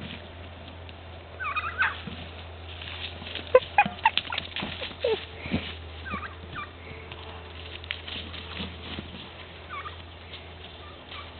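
A horse playing with a ball: a quick cluster of sharp knocks and thuds in the middle, with short high chirping calls from animals in the background now and then.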